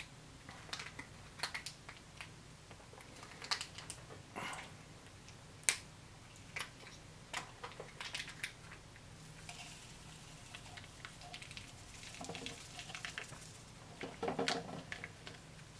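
Foil MRE drink-mix packets crinkling and crackling as they are handled, in scattered small crackles, with a louder patch of rustling near the end as a packet is worked open.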